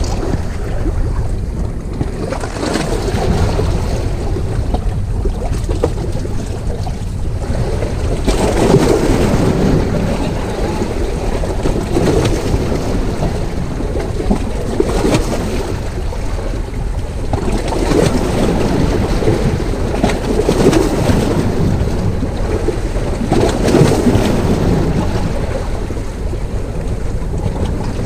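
Heavy surf washing against rocks, swelling every few seconds, with wind rumbling on the microphone.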